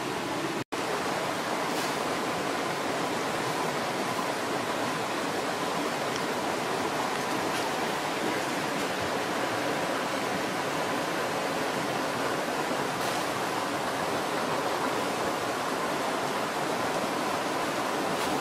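Steady, even rushing noise, like outdoor water or ambience, with a momentary dropout about a second in.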